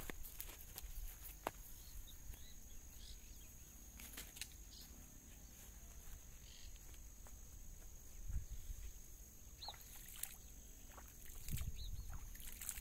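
Quiet outdoor ambience at a pond's edge: a steady high insect trill with a few short faint bird chirps and scattered light clicks, and low rumbles about eight seconds in and again near the end.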